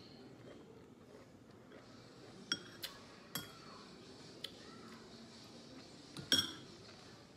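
Light clinks of tableware, about five sharp taps with a brief ringing tone, starting about two and a half seconds in; the loudest comes near the end.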